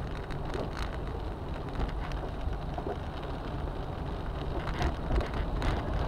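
Rain pattering on a car body, heard from inside the cabin, over the hiss of tyres on a wet road and the low hum of the car, with occasional sharper taps.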